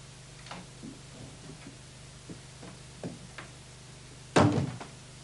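A few light clicks and knocks of small objects being handled at a dressing table, then one loud, sharp knock about four seconds in, over a steady low electrical hum.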